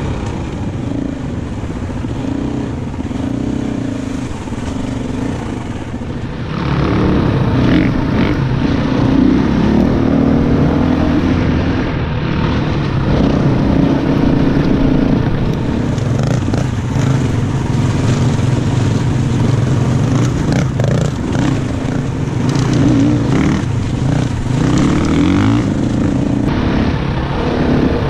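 A 250 cc dirt bike engine running under way, its pitch rising and falling with the throttle. It gets louder about six and a half seconds in as the throttle opens up, and scattered knocks and rattles come through later on.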